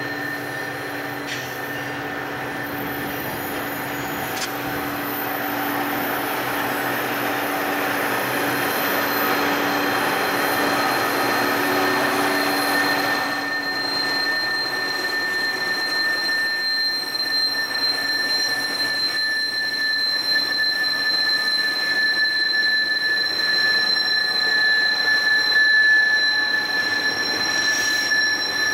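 Diesel-hauled freight train on a tight mountain curve, its steel wheel flanges squealing against the rail in a steady high-pitched squeal over the running of the locomotives. The sound changes abruptly about halfway through, and the squeal goes on.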